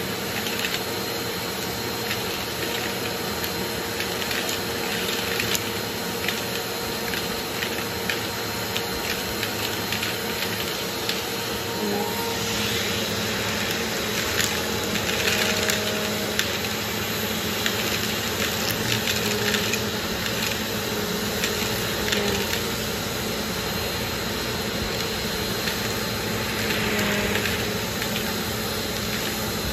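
Bissell PowerGroom bagless upright vacuum running steadily with a high whine, its hose wand sucking small candies off carpet, which click and rattle as they are pulled up the hose.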